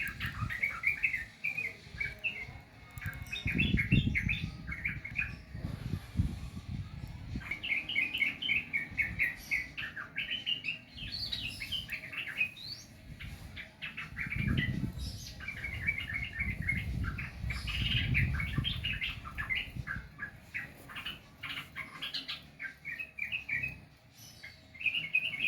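Yellow-vented bulbul (trucukan) singing: repeated quick phrases of short chirping notes with brief gaps between them. A low rumble comes and goes twice under the song.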